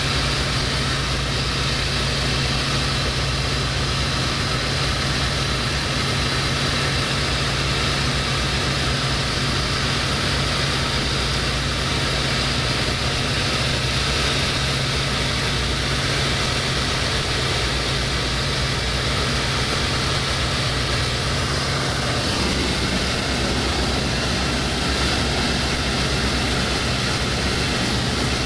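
A light propeller aircraft's engine and propeller running steadily in flight, heard from inside the cockpit under a constant rush of air noise. The engine note shifts slightly about three-quarters of the way through.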